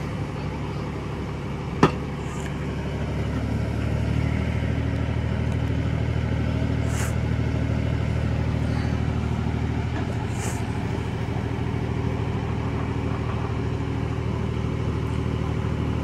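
Heavy diesel engine of the backhoe loader or tractor running steadily, getting a little louder about three seconds in. A single sharp click comes about two seconds in.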